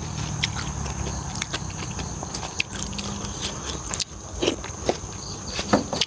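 Close-up chewing of a mouthful of spicy pork offal, with short sharp crunches and wet clicks of the mouth scattered irregularly, soft cartilage crunching between the teeth.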